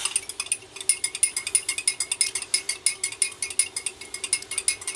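Spoon stirring lime juice and honey in a drinking glass, clinking rapidly and evenly against the glass at about nine clinks a second.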